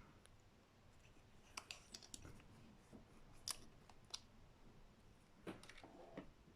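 Near silence broken by about six faint, short clicks and light taps, spread through the few seconds, as a soldering iron and solder are worked against a guitar tone pot's lug to redo a poor ground solder joint.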